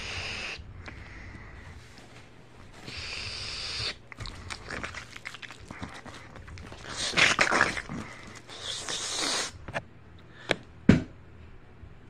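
Plush toys handled on a bed: several short breathy hissing and rustling bursts, then two sharp knocks near the end, the second louder.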